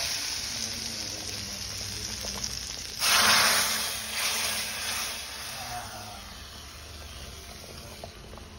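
Hot ghee tempering (tadka) with cumin and red chilli sizzling as it meets the kadhi. The sizzle fades, flares up sharply and loudly about three seconds in, then dies away over the next few seconds.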